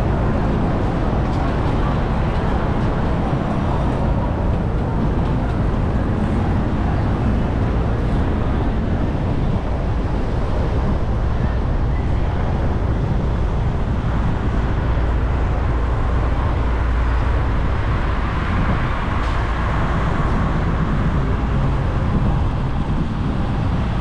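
Steady city traffic and road noise from a car driving through the streets: an even low rumble with a hiss over it, and no single event standing out.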